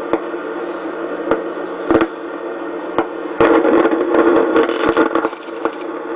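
Westinghouse RA/DA regenerative radio receiver playing with a steady hum and sharp static clicks. The signal swells up about three seconds in and fades out again near the end as the tickler control is turned. The reception cuts in and out, which the owner blames on a loose connection he cannot find, possibly at the detector tube's pin connections.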